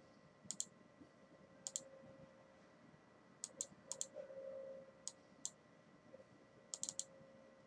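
Computer mouse clicking: about a dozen short, sharp clicks at irregular intervals, some in quick pairs and one quick run of three near the end, over a faint steady hum.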